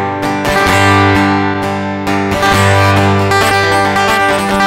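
Acoustic guitar strummed in steady chords, the instrumental outro of a folk song after the last sung line.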